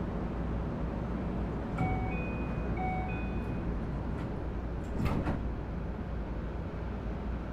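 Door chime aboard a Keio Series 5000 electric train car: a two-note chime played twice, then a single knock about five seconds in as the sliding doors shut. A steady low hum from the car runs underneath while it stands at the platform.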